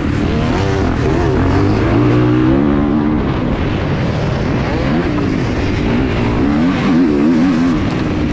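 Motocross dirt bike engines revving hard, their pitch climbing and dropping again and again as the riders work the throttle and shift through the gears.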